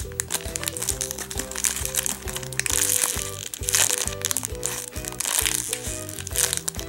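Clear plastic packaging bag crinkling in several short bursts as a foam squishy toy is squeezed inside it, over background music.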